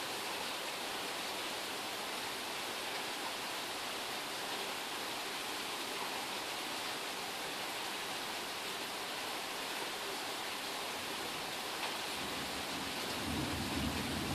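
Steady rain falling in a thunderstorm, an even hiss. A low rumble of thunder starts to build near the end.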